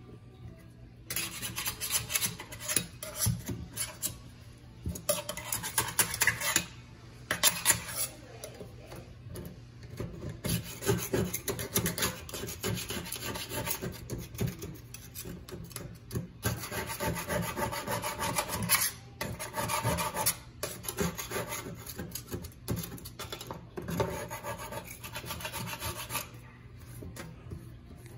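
A hand scraper scraping old caulk off the rim of a stainless steel sink. It works in runs of quick rasping strokes, with short pauses between runs.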